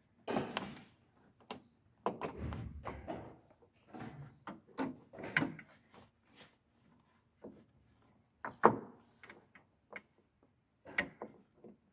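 Irregular clicks, knocks and short scrapes of a clutch master cylinder and tools being handled and worked into place by hand. The sharpest click comes about two thirds of the way through.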